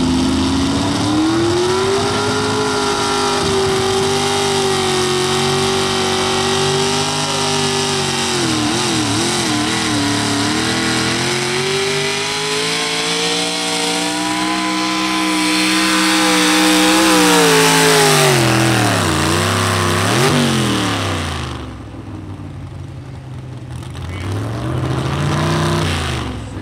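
Modified two-wheel-drive pulling truck's engine at full throttle, pulling a sled. The revs climb over the first two seconds and hold, waver around eight to ten seconds in, then climb again. They fall away steeply about eighteen seconds in as the pull ends, with a quick blip and a sharp drop in loudness; one more short rev comes near the end.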